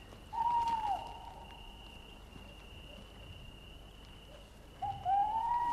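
Owl hooting twice: a short hoot about a third of a second in, then a longer hoot that rises and falls near the end, over a faint steady high whine.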